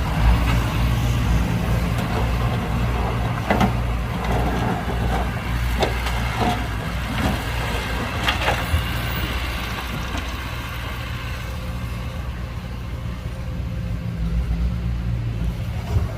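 Heavy diesel engine of earthmoving machinery running steadily, with a handful of sharp metallic clanks about a third of the way in.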